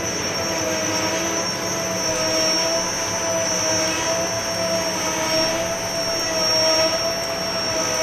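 Tahini mill machinery running steadily: an even mechanical drone with a constant high whine and a lower tone that wavers slightly.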